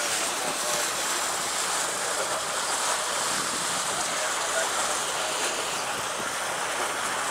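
A moving houseboat: a steady wash of water along the hull, with the boat's engine running low underneath.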